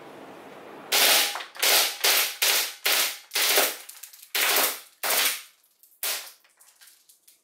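Gas-powered airsoft Glock 18C pistol firing about ten sharp shots one after another, roughly two a second with short gaps, starting about a second in and stopping about six seconds in.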